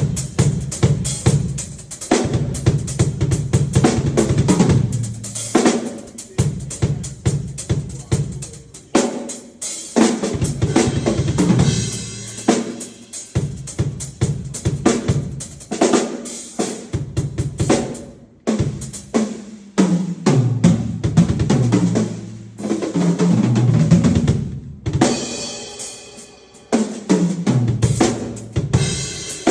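A drum kit being played live, with kick, snare and rimshot strokes in a busy, fast pattern and low pitched notes underneath, broken by a few short pauses.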